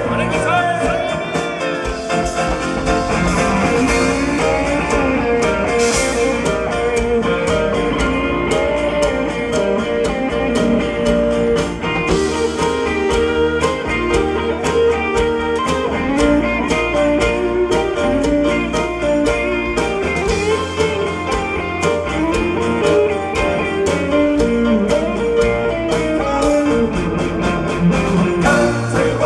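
Live band music: electric guitar over bass and drums, with a country-rock feel.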